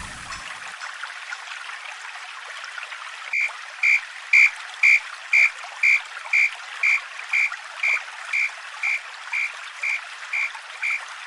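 Japanese level-crossing warning bell ringing 'kan-kan': an even, high ding about twice a second that starts a few seconds in with a click and slowly grows quieter. A steady water-like hiss runs underneath.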